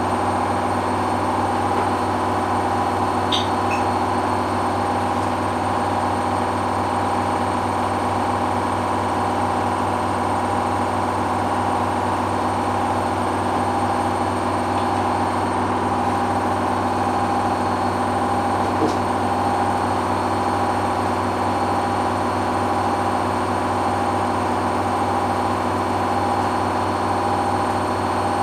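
Hoover washing machine running steadily in its final spin, a constant motor hum and whine with the drum turning.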